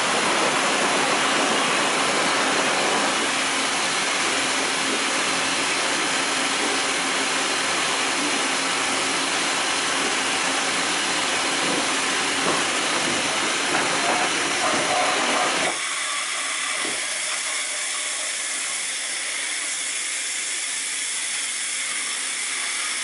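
Mitsui Seiki HJ63A horizontal machining center hissing steadily through a pallet change. About 16 seconds in the hiss drops sharply, and a quieter hiss carries on.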